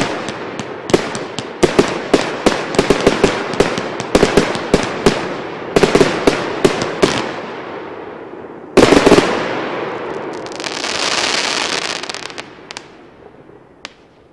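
CGFP-31 firework battery firing: sharp bangs a few per second, then a loud final volley about nine seconds in, followed by a high hiss that fades away.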